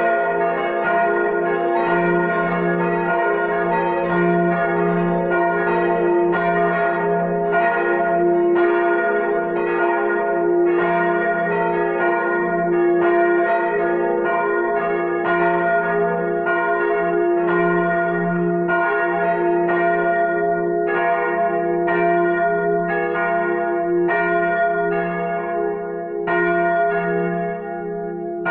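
Full peal of four swinging church bells, tuned f', a♭', b♭' and d♭'', striking in an overlapping, irregular pattern a couple of times a second over a steady ringing hum.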